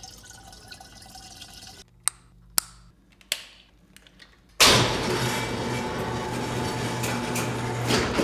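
Liquid running from a metal hose nozzle into a plastic container, then a few sharp clicks. About four and a half seconds in, a loud, steady rushing noise with a low hum starts suddenly.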